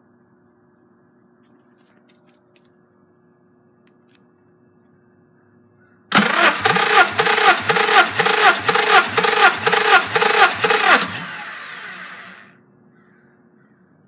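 Starter motor cranking a Honda D17A four-cylinder engine for a compression test: a loud whirring crank with a heavy pulse about twice a second for about five seconds, then the starter cuts and spins down over a second or so.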